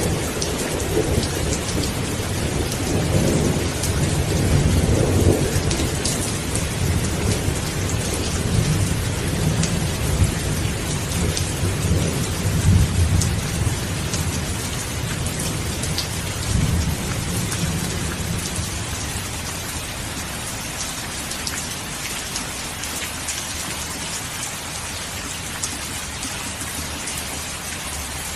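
Steady heavy rain with rolling thunder rumbling underneath, the thunder strongest in the first half and slowly dying away toward the end.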